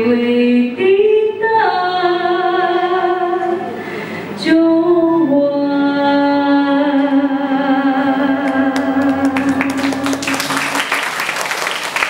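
A woman singing a slow song through a microphone, ending on a long held note. Audience applause breaks out about ten seconds in, over the end of the note.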